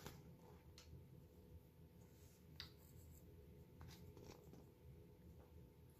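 Near silence: room tone with a faint steady hum and a few faint, short clicks.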